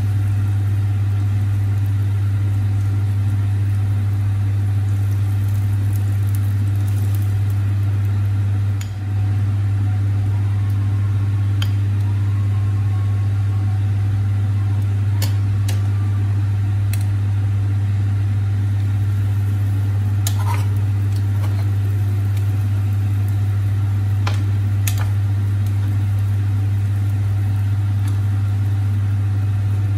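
A steady low hum, with a few light clicks and scrapes of a spatula and spoon on the griddle and cutting board.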